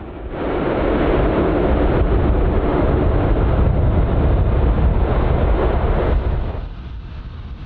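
Airbus A400M Atlas's four turboprop engines and eight-bladed propellers running loud with a deep rumble as the aircraft rolls out after landing; the sound drops in level about six seconds in.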